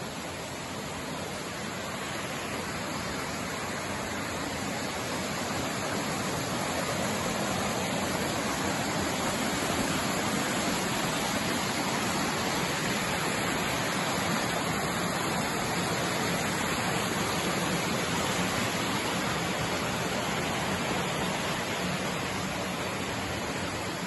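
Steady rushing of a mountain stream, growing a little louder over the first several seconds and then holding even.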